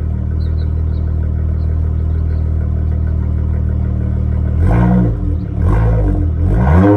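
Dodge Charger's exhaust through Flowmaster Super 10 mufflers, idling steadily, then two light revs, one about four and a half seconds in and another near the end.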